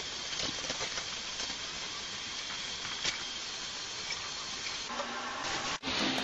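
Steady background hiss, with a faint click about three seconds in; music starts just before the end.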